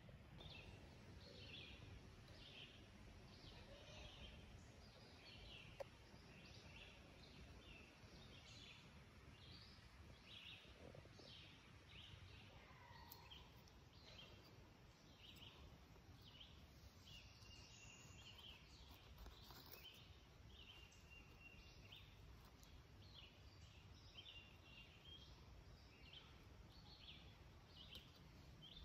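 Faint, quiet forest ambience: a steady series of short, high chirps from wildlife, repeating about once a second or faster, with a single soft tap about six seconds in.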